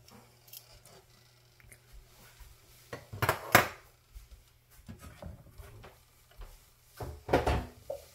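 Two short bouts of cookware clattering, pans and utensils knocking together in the kitchen, the first about three seconds in and the second near the end.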